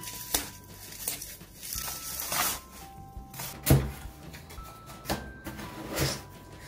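Cardboard shipping box being handled and its flaps pulled open: a series of short scrapes and knocks, with a longer rasp about two and a half seconds in and the loudest knock just after. Quiet background music of simple held single notes runs underneath.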